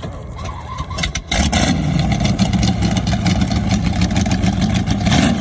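Straight-piped V8 engine of a 1972 Nordic jet boat running on its trailer, quieter at first, then suddenly much louder about a second in, with a rapid, heavy run of exhaust pulses.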